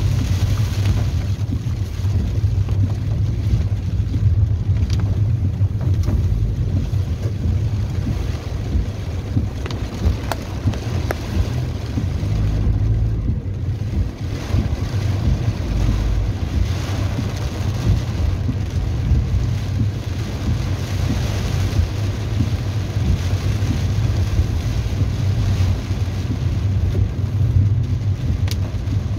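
A car driving through heavy rain, heard from inside the cabin: a steady low rumble of the car and its tyres on the wet road, with the hiss of rain on the body and windshield.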